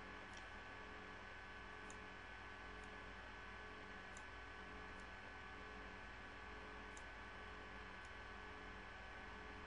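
Faint computer mouse clicks, about one every second or so, over a steady electrical hum.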